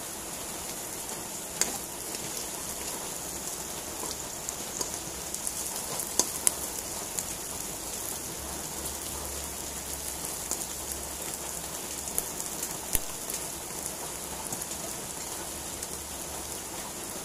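Button mushrooms and spring onion frying in oil in a wok: a steady crackling sizzle with scattered sharp pops.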